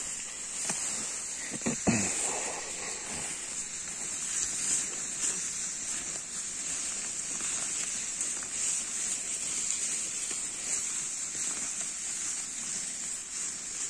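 Steady high-pitched chirring of grasshoppers or crickets in pasture grass, with the swish of tall grass and a few knocks about two seconds in.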